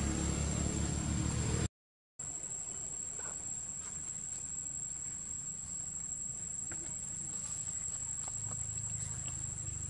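Steady high-pitched insect drone over a low rumble, with a few faint clicks from the ground. The sound cuts out for about half a second near two seconds in.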